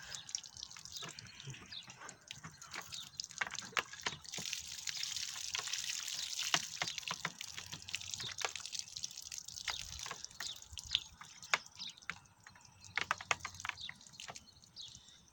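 Water streaming and dripping out of a knife-punctured plastic container as it is tipped and emptied: a steady pour through the middle, then trickling and scattered drips.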